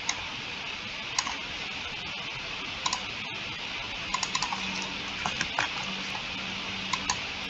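Scattered sharp clicks of a computer mouse and keyboard, about a dozen, with a quick bunch about four seconds in, over a steady hiss.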